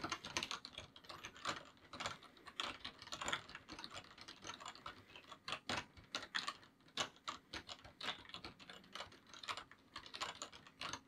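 Typing on a computer keyboard: quick, irregular key clicks that keep up throughout and stop just before the end.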